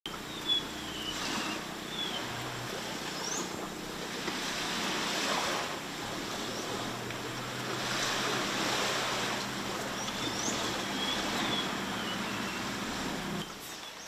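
Surf washing on a shore, swelling and easing every few seconds, with short bird calls sliding in pitch over it and a faint steady low hum underneath; the sound drops away near the end.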